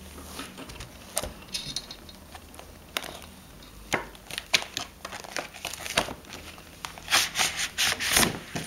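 Crinkling and rustling of a cross-stitch kit's plastic and cardboard packaging as it is opened by hand and its glossy cover is lifted off. The handling is irregular, with a denser run of loud crinkles near the end.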